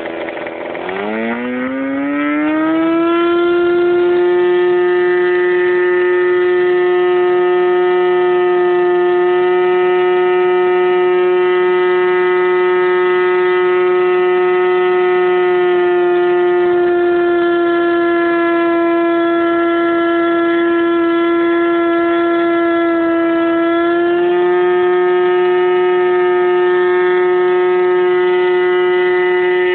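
OS 75 two-stroke glow engine with its stock muffler, turning a 14x6 propeller, revving up to full throttle over the first few seconds and then holding a loud, steady high-pitched scream during a break-in run. Its pitch sags a little partway through and rises back to full speed about 24 seconds in.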